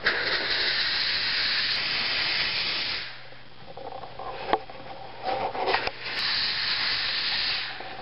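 Chauvet Hurricane 1800 Flex fog machine jetting fog with a hiss for about three seconds. A lull with a few clicks follows, then a second hissing burst of about a second and a half.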